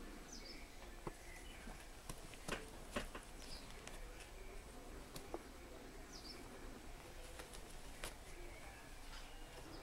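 A cat wrestling a plush toy on a bedspread: faint rustling of fur and fabric, with a few scattered soft clicks and taps.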